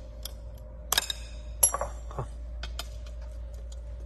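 Scored sheet glass being snapped off with glass-breaking pliers: a few light clicks, then a sharp crack with a brief high ringing about one and a half seconds in, followed by a short glassy scrape.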